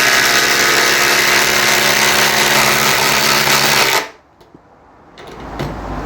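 Two 18-volt brushless impact drivers hammering 100mm coach screws in at the same time: a loud, steady rapid rattle that stops abruptly about four seconds in as the screws seat, followed by a few faint clicks.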